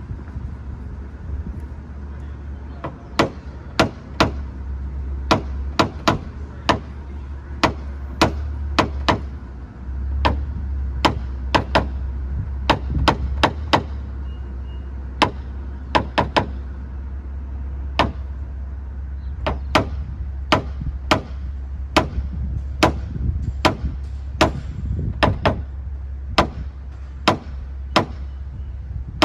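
Dozens of sharp, light taps at about one or two a second, starting a few seconds in: paintless dent repair tapping on the car's metal body panel to work out a dent. A steady low hum runs underneath.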